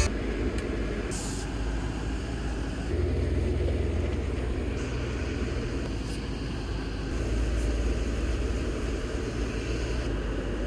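Jeep Wrangler Rubicon driving slowly on a dirt trail: a steady low engine and tyre rumble that grows a little louder about three seconds in and again near eight seconds, with a few brief higher crunches or rustles.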